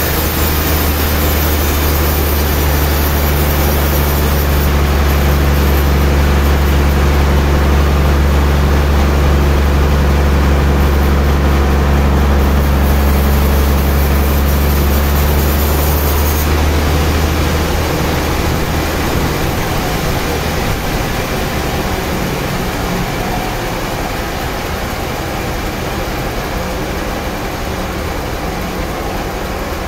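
Large vertical band-saw mill running, sawing a big suar (rain tree) log, with a steady low drone over a constant hiss. A little past halfway the low drone fades away and the mill runs on more quietly.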